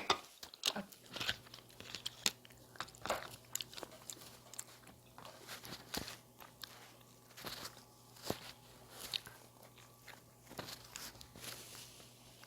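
Close-miked eating: irregular crunching and wet chewing sounds as a mouthful of bossam with its fresh vegetable wrap is bitten and chewed.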